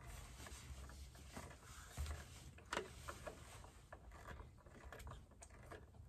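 Screwdriver turning the terminal screw of a Renogy Rover solar charge controller: faint scraping with a couple of light clicks, the screw spinning on without snugging down.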